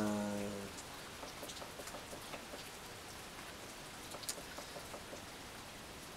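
Steady rain falling, a faint even hiss with scattered drop ticks. It opens with a man's low, drawn-out vocal hum that ends under a second in.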